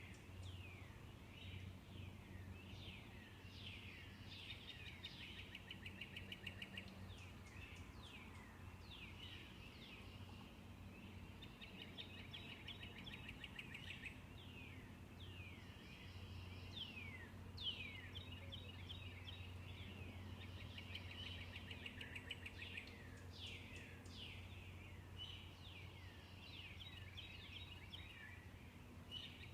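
Several songbirds singing in a dawn chorus: repeated quick down-slurred whistled notes mixed with fast chattering trills. A steady low hum runs underneath.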